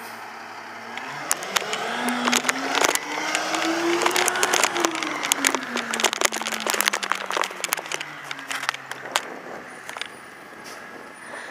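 Diesel engine of a Freightliner rear-loader garbage truck pulling away: revs climb for about three seconds and then fall away over the next four as it drives off. Many sharp clicks and rattles sound over it.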